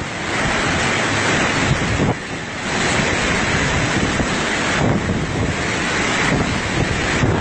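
Strong storm wind rushing and buffeting the microphone, surging and easing in gusts every couple of seconds.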